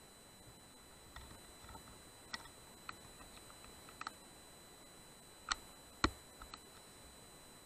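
Faint scattered clicks and taps from handling the rifle and its scope-mounted night-vision unit as the aim shifts. There are about a dozen short ticks, the sharpest two close together late on.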